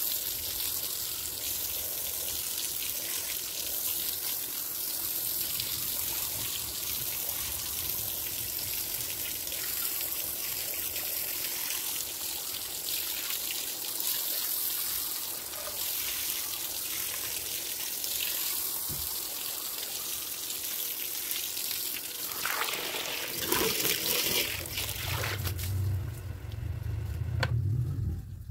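Water running and trickling steadily, with a low hum joining near the end.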